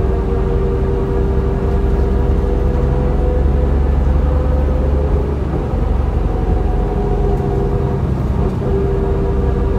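Inside a 2004 New Flyer D40LF transit bus: its Cummins ISL straight-six diesel and driveline running under way, a steady low rumble with a steady whine above it whose pitch shifts a little about halfway through.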